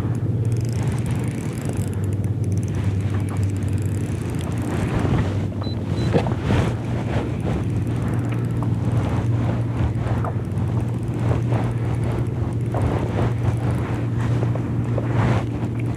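Boat motor running with a steady low hum, with irregular short knocks and water noise over it.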